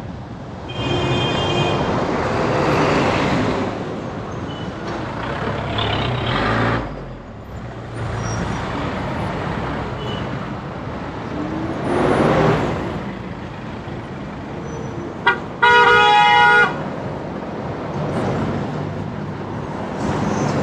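Road traffic with vehicles passing by. A faint horn sounds about a second in, then a short beep about 15 seconds in, followed right after by a loud horn blast lasting about a second.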